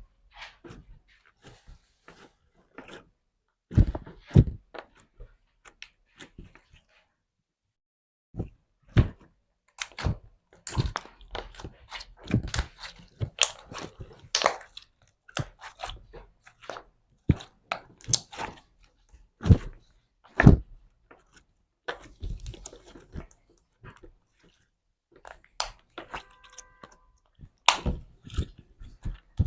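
Slime being squeezed and poked by hand, giving irregular sticky pops, clicks and crackles, with a short squeak near the end.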